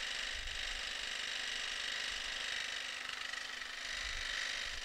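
Electric jigsaw, mounted upside down with a very fine blade, running steadily as it cuts through thin sheet metal.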